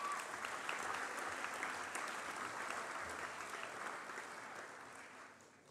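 An audience applauding, the clapping thinning out and dying away near the end.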